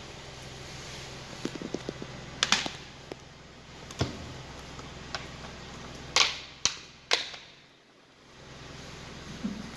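Flat-soled leather boots treading on raw chicken pieces and a plastic food tray on a concrete floor. A few light clicks give way to about half a dozen sharp cracks and crunches, the loudest a little past the middle, over a steady low hum.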